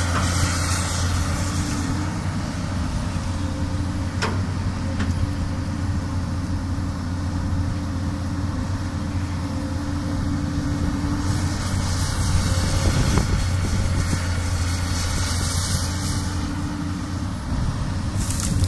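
Komatsu PC200 excavator's diesel engine running steadily with a low hum, a sharp click about four seconds in, and stretches of high hiss around the middle and near the end.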